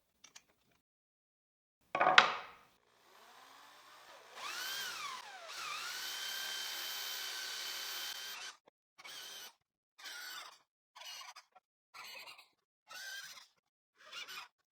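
Power drill with a 25 mm Forstner bit boring holes in cedar: the motor spins up about four seconds in, its pitch dips as the bit bites and then holds steady for a few seconds, followed by a string of short drilling bursts about once a second. A single click comes about two seconds in.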